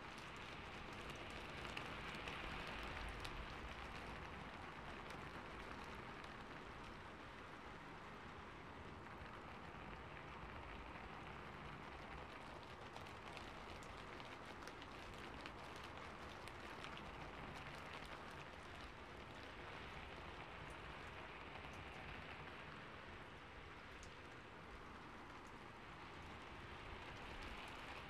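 Steady rain falling on a surface: a soft, even hiss dotted with many small drop ticks, swelling slightly a couple of seconds in and again near the end.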